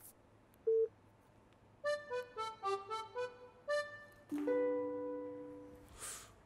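Background music cue: a single note, then a quick run of short keyboard-like notes, ending on a held chord that fades away.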